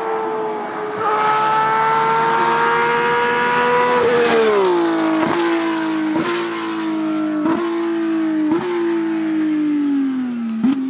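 Rally car engine at full throttle, its note climbing with a quick gear change about a second in, then falling steadily as the car passes and moves away. Five sharp cracks break the falling note.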